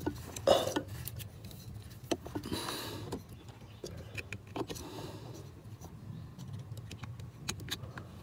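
Plastic wiring-harness connectors being handled and pressed together at a car's accelerator pedal sensor: scattered clicks and knocks, with a louder one about half a second in and a short rustling scrape near the three-second mark, over a low steady hum.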